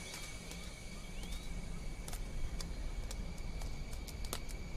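Quiet background ambience: a steady high whine under a low hiss, with scattered faint clicks and a short rising chirp about a second in.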